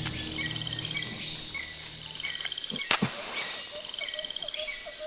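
Tropical forest insect chorus: a steady high buzz, with short trilled chirps repeating every second or so and, from about three and a half seconds in, a faster run of repeated lower notes. One sharp click about three seconds in.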